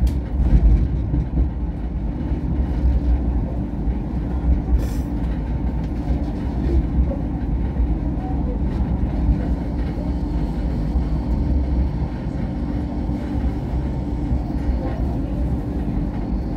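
MTR Light Rail vehicle running along its track, heard from inside the car: a steady low rumble of wheels and motors with a faint steady hum, and one sharp click about five seconds in.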